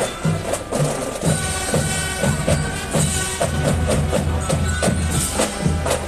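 Parade band music: drums striking a steady march beat under held instrument notes.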